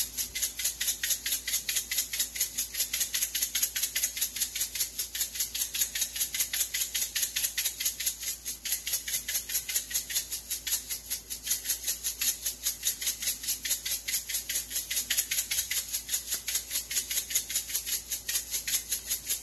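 A container of candy sprinkles being shaken over a dessert, the sprinkles rattling inside in a quick, steady rhythm of about four or five shakes a second.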